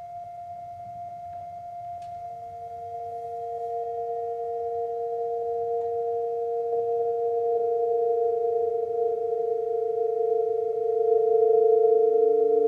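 Electronic score of sustained pure tones: one high tone held throughout, joined about two seconds in by a lower tone that swells, and a third, lower tone near the end, the whole slowly growing louder.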